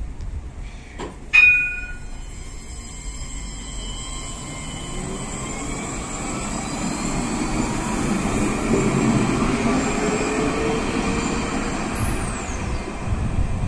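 Alstom Citadis 405 tram pulling away: a single ringing chime about a second in, then the electric traction motors whining, slowly rising in pitch as it accelerates off. Near the end a high whistle sweeps down.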